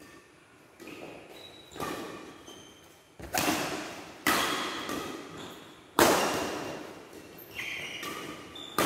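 Badminton rally: rackets hit the shuttlecock about six times at irregular gaps of one to three seconds, each hit sharp and followed by the echo of a large hall. The loudest hit comes about six seconds in, and short squeaks of court shoes on the floor come between the hits.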